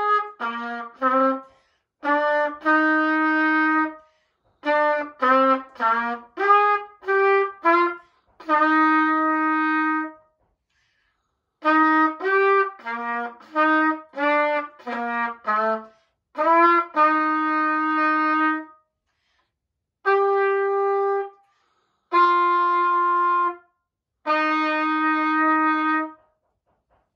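A beginner playing a short exercise on a trumpet: phrases of quick separate notes alternate with long held notes, with short rests between phrases. It ends on three long held notes, each followed by a short break.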